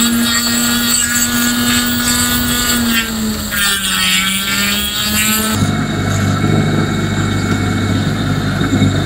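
Flexible-shaft rotary tool whining as its bit works a silver ring, the pitch dipping briefly under load about three to four seconds in. About five and a half seconds in it gives way abruptly to a bench polishing motor running with a lower, steady hum as its buffing wheel spins.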